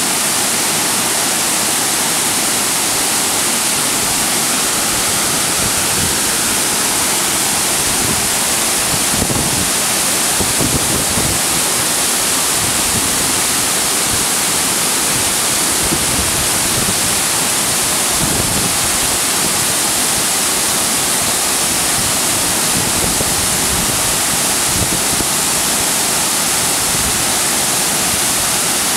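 Waterfall running near flood: a loud, steady rush of heavy whitewater pouring over rock and crashing into the pool below.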